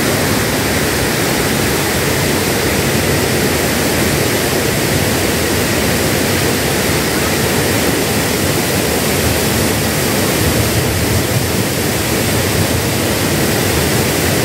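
Loud, steady rushing of a waterfall heard from the trail above it, an even noise with no breaks.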